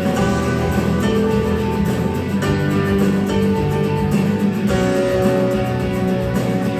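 Instrumental music with no singing: a song's backing plays held chords that change twice.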